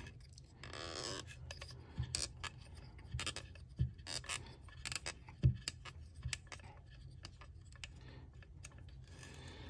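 Faint, scattered small clicks and light scrapes of a small hex key working the front screws of a Tavor 7 rifle forend as the screws are backed out, with a brief soft rustle about a second in.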